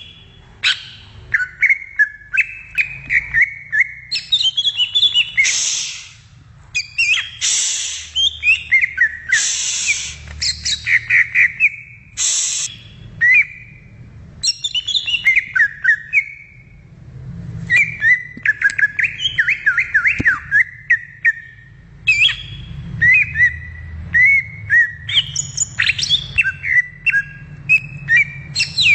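Cucak ijo (green leafbird) singing a fast, varied run of whistles, chirps and warbling trills, with several short harsh rasping notes in the first half.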